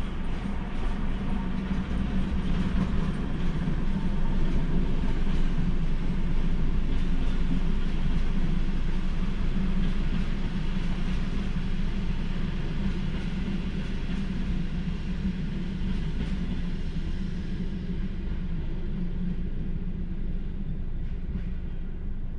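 A train running past with a steady rumble and rolling noise. It grows louder over the first several seconds, then dies away and loses its high end near the end.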